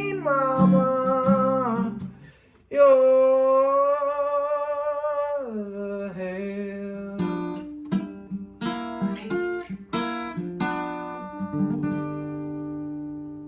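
Acoustic guitar song closing. A singer holds long drawn-out notes on the final line, then a short picked acoustic guitar run leads into a final chord left ringing.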